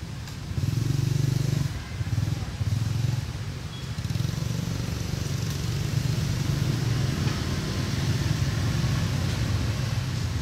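Low, steady rumble of a motor engine running, with a high hiss above it.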